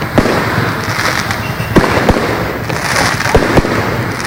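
Fireworks display going off: a dense, continuous crackle with irregular sharp bangs several times a second.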